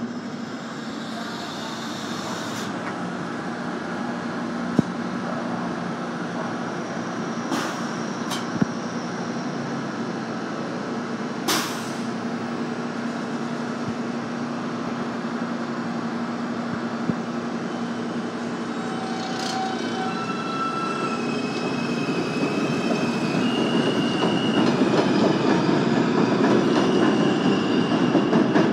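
R160 subway train running on elevated tracks: a steady rumble of wheels on rail with a low steady hum and a few sharp clicks. About two-thirds in, its propulsion gives a series of tones stepping up in pitch as the train accelerates away, and it grows louder near the end.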